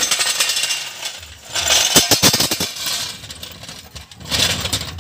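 Metallic clinking and rattling of lug nuts and tools being handled while a steel wheel is refitted onto its studs, with a quick run of sharp knocks about two seconds in.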